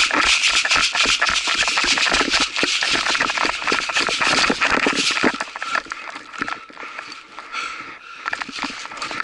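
Running footsteps on dry pine-needle forest floor, with kit rattling at each stride. The steps are dense and hurried for about five seconds, then become quieter and sparser.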